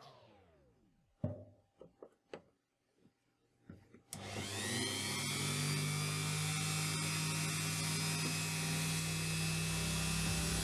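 A few light knocks and clicks of handling, then about four seconds in a power tool spins up and runs steadily, working the material.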